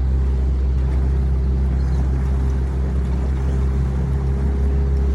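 Boat motor running steadily at low forward speed: an even low hum with a faint constant whine above it.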